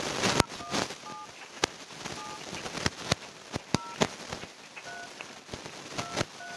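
Android phone dial pad key tones: short two-tone DTMF beeps, one per digit, about seven at uneven intervals as a phone number is tapped in, with scattered short clicks between them.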